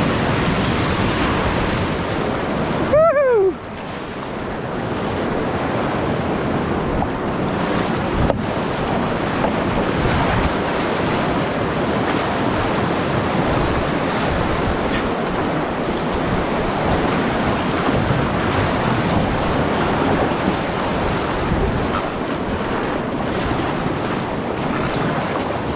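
Whitewater rapids rushing steadily, with wind buffeting the microphone. About three seconds in there is a short pitched cry that falls in pitch, and a single sharp knock comes near the eight-second mark.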